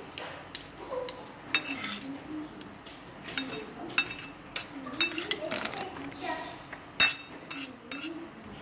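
A metal spoon and chopsticks clink and scrape against a ceramic plate as sticky instant black bean sauce noodles are tossed. The clinks come irregularly, a dozen or more, and the sharpest is about seven seconds in.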